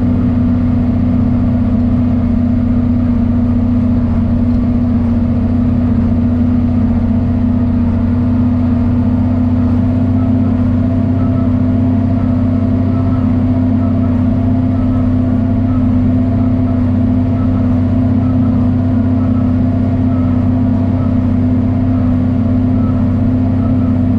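John Deere 4430 tractor's six-cylinder turbo diesel engine running at a steady speed. From about ten seconds in there is also a faint regular ticking, roughly once a second.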